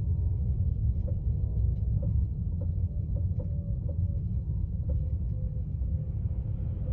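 Inside a Tesla Model 3 cabin at about 8 to 9 mph: a steady low rumble with a short, light thump repeating about every half second. The thump is a fault on a brand-new car whose cause Tesla has not been able to find.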